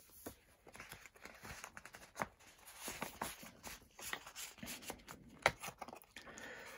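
Faint, irregular paper rustling and light taps as the pages of a memorabilia book are turned and handled.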